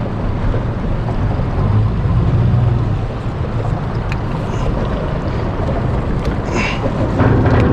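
A boat's motor running steadily while the boat backs up in reverse.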